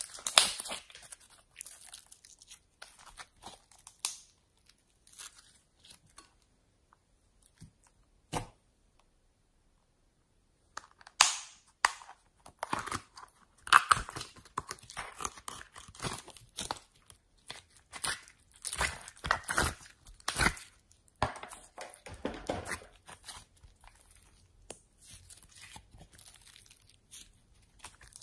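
Slime being squeezed, stretched and pulled by hand, giving irregular sticky crackles, pops and tearing sounds. They pause for several seconds about a quarter of the way in, then start up again, denser.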